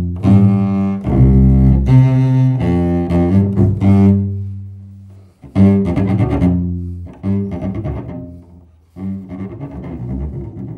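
Solo double bass played with the bow: low notes with strong, biting bow attacks, some left ringing and dying away. It stops briefly about five seconds in, starts again with a loud stroke, and after another short break near the end goes on more quietly.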